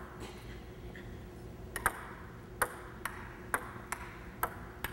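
Table tennis rally: the ball clicks off the paddles and bounces on the STIGA table. After a couple of stray clicks, the rally gets going a little under two seconds in, with a sharp click about every second.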